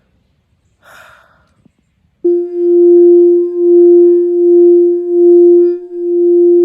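Singing bowl sounding one steady low tone that swells and fades in a slow pulse, about once a second. It starts abruptly about two seconds in.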